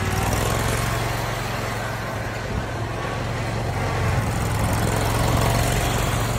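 Custom zero-turn riding lawn mower's engine running steadily as it drives, a low hum with a hiss of noise over it.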